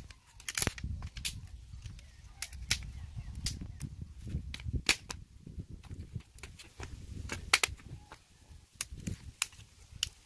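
Dry sticks and twigs snapping and clacking as they are broken by hand and dropped onto a pile: a run of sharp, irregular snaps.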